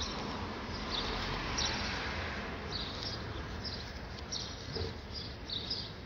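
Small birds chirping, short high calls repeated irregularly over a steady outdoor background hiss.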